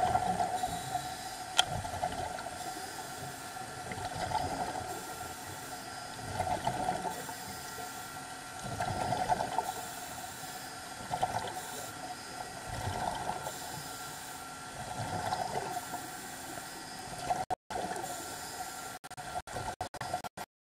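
Underwater sound at a ship's propeller: a steady hum under swells of bubbling and hiss about every two seconds, from a diver's breathing and exhaust bubbles. Near the end the sound breaks up into choppy dropouts.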